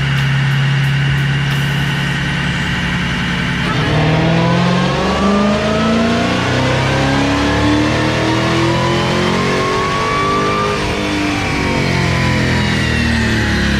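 2020 Dodge Charger Hellcat's supercharged 6.2-litre HEMI V8 doing a dyno pull. It holds steady for about four seconds, then the revs climb smoothly for about seven seconds before falling back near the end.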